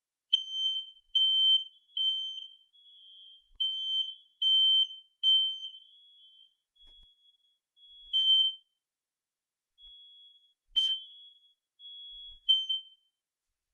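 Residential smoke detector sounding its test alarm: a high-pitched piezo beep in groups of three, the temporal-three fire-alarm pattern. Later the beeps come irregularly and some are held longer, with two sharp clicks.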